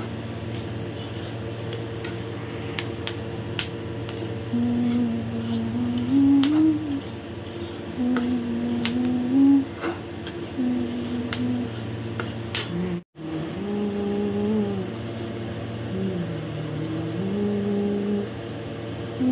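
Metal spatula scraping and tapping against a steel kadai as semolina and peanuts are stirred and roasted, over a steady low hum. A slow tune in long held notes comes in about four seconds in and carries on past a brief dropout midway.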